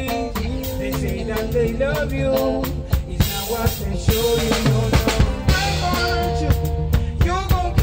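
A live band playing a song, with two male voices singing over drum kit, bass guitar, keyboard and electric guitar. The drumming gets busier for a few seconds around the middle.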